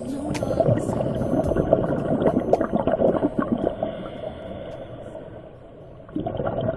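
Underwater bubbling and crackling with scattered sharp clicks, as picked up by a diving camera. It dies down about four seconds in and comes back abruptly near the end.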